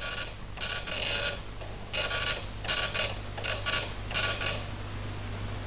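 Dot-matrix printer printing: its print head buzzes in about six short bursts, each under a second, with short gaps between them, over a low steady hum.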